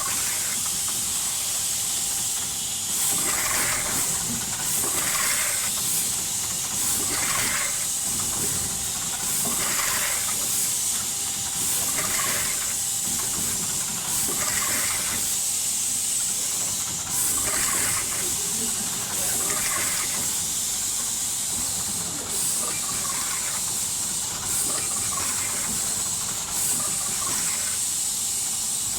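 Steady high-pitched hiss of machinery, with short noisy bursts repeating every one to three seconds.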